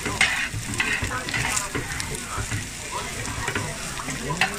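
Soondae bokkeum stir-frying on a hot flat steel tray, sizzling as metal spatulas toss it and scrape and clink against the tray several times.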